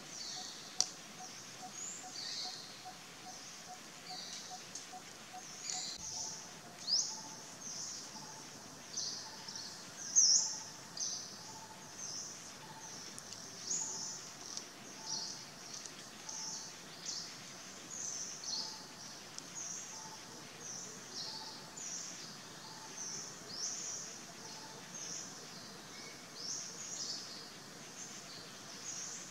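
Forest birds chirping: many short, high chirps and quick falling whistles overlapping. In the background a faint lower note repeats, quickly for the first few seconds and then about once every 0.7 s, and there is one sharp tick about a second in.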